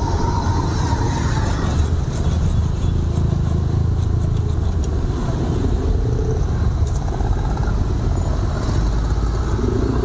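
Steady low rumble of passing road traffic, with a run of faint quick scraping ticks a few seconds in.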